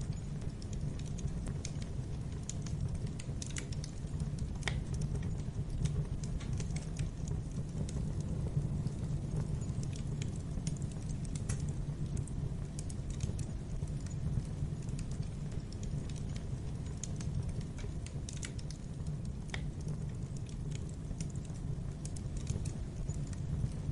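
Wood fire crackling in a fireplace: irregular small pops and snaps over a steady low rumble of the burning fire.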